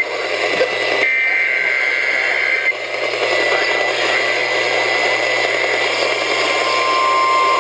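Weather alert radios hissing with static and hum, with a burst of warbling two-tone digital alert header (SAME data) from about a second in until nearly three seconds. Near the end the steady 1050 Hz NOAA Weather Radio warning alarm tone starts, announcing a new severe thunderstorm warning.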